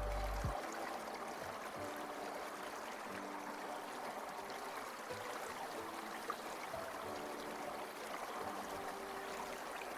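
A small water stream running steadily. A deep bass note from background music cuts off about half a second in, and faint held music tones come and go over the water.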